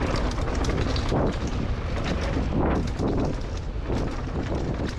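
Wind buffeting an action camera's microphone while riding a Scott Gambler 710 downhill mountain bike at speed, with a steady low rumble and many short rattles and knocks from the bike and tyres on the trail.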